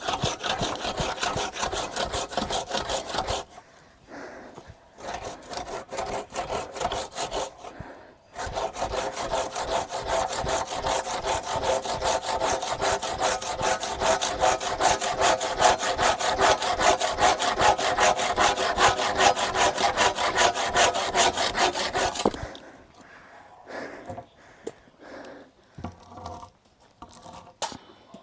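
Rapid, evenly repeated scraping or rasping strokes in two long runs, with a pause of about five seconds between them, then only scattered quieter scrapes near the end.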